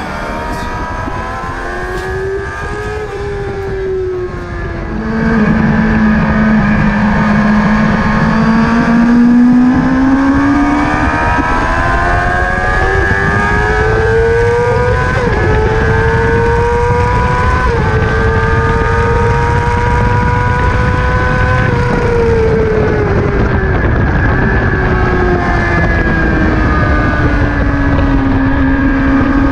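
Sport motorcycle engine heard from a camera mounted on the bike, running hard on a race track. About five seconds in the note drops and gets louder as the throttle opens in a higher gear. It then climbs steadily with brief dips for a long stretch, and falls away near the end as the bike slows for a corner.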